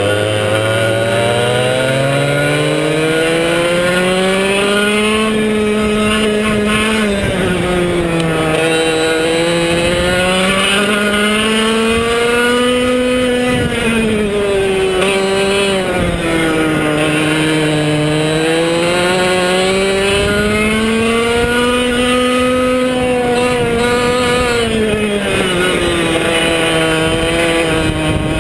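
Arisco 100cc two-stroke kart engine running hard on track, its pitch climbing on the straights and dropping as the kart slows for each corner, several times over.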